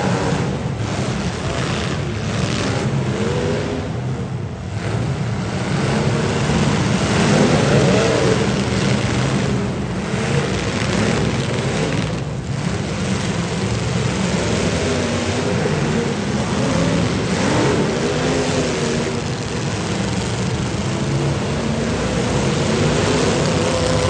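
Several demolition derby cars' V8 engines running and revving together: a loud, steady din whose pitch rises and falls as the drivers push against each other.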